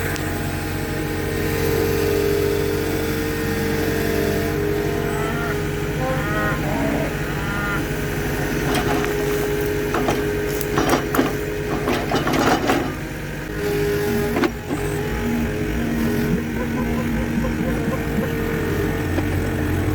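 Engine of the machine driving a post-hole auger, running steadily under load as the auger bores into the soil; its note shifts a little over halfway through. A cluster of knocks and rattles comes from about nine to thirteen seconds in.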